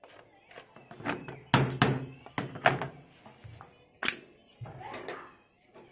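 Orange plastic multimeter case being handled and opened: a screwdriver working the back screw, then the two plastic halves prised apart, giving a series of sharp plastic clicks and knocks, the loudest about a second and a half in and about four seconds in.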